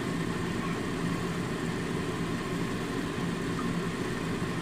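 Steady low rumble of a stove burner flame under a pot of garlic water simmering down.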